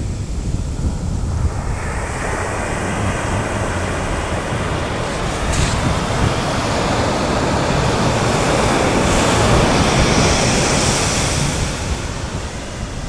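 Ocean surf washing on a sandy beach, mixed with wind buffeting the microphone. The wash swells from about two seconds in, is loudest around ten seconds, then eases off near the end.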